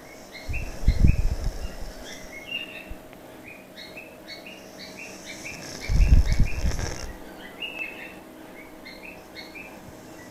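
A cat snoring: two rough, low snores about five seconds apart, each lasting about a second. Small birds chirp steadily in the background.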